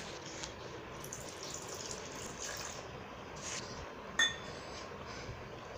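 Milk being poured from a steel tumbler into a plastic blender jar, a faint steady pour, with one sharp clink about four seconds in.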